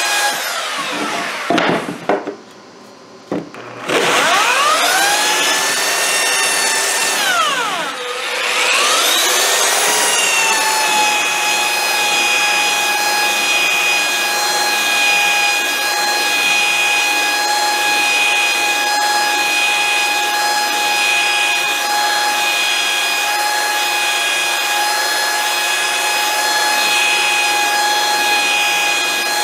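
Electric power saw cutting wooden boards, its motor giving a high whine. It winds down about two seconds in and stops briefly, spins back up, slows and picks up again around eight seconds in, then runs steadily.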